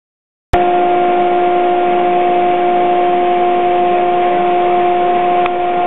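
ShopBot CNC router's spindle motor running with a steady high-pitched whine over a constant hiss, starting abruptly about half a second in.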